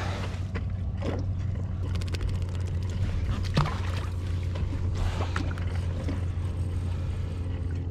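Light clicks and knocks from a fishing rod and reel being handled, with a run of fine rapid clicks about two seconds in. Underneath is a steady low rumble.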